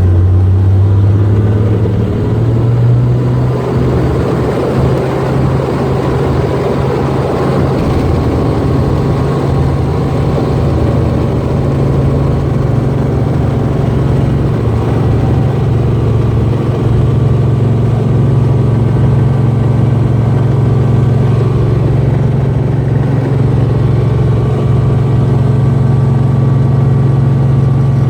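Helicopter engine and rotor running steadily: a loud, even, low hum with little change.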